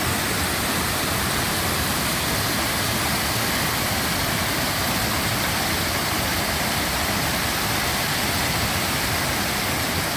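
Falling water of a waterfall, a steady, even rush.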